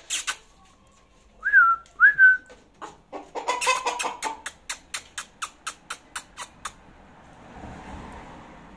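Silkie chickens calling: two short whistle-like calls that rise then fall, then a run of clucks, quick at first and settling to about four a second before stopping. A soft rustle follows near the end.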